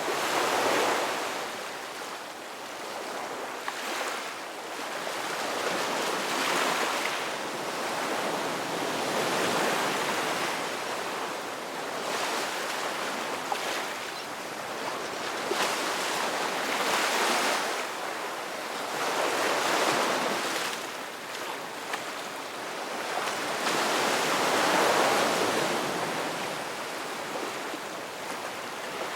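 Ocean waves breaking and washing on the shore, the surf swelling and falling every few seconds.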